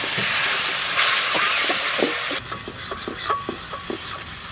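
Spice paste sizzling and hissing in hot oil in a wok, a little water just added, with light knocks. The sizzle cuts off suddenly about two and a half seconds in, leaving quieter scattered ticks.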